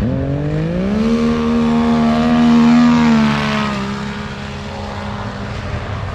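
Drag-racing snowmobile engine running flat out down the track. Its pitch climbs over the first second, holds steady at high revs, loudest just before three seconds in, then drops and fades as the sled speeds away.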